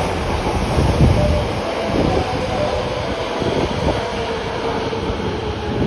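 Osaka Metro Midosuji Line subway train pulling out of the station, its cars rumbling past along the platform. The low rumble is heaviest in the first couple of seconds, then thins as the last car clears.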